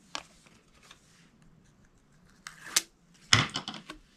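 Paper-craft handling sounds: rustle and crackle of the release liner being peeled off double-sided tape on a chipboard piece, then a thump and rustle a little after three seconds in as the chipboard is laid down and pressed onto cardstock.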